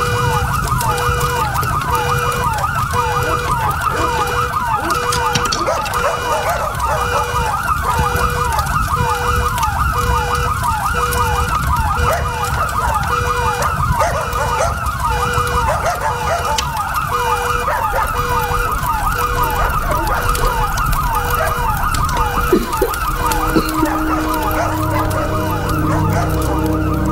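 Several emergency-vehicle sirens sounding at once over a low rumble: a fast yelping siren repeating about three times a second, and a second siren pulsing on and off. Low sustained tones join near the end.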